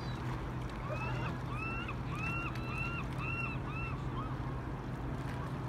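A bird calls in a quick run of about seven rising-and-falling notes, roughly two a second, over a steady low hum.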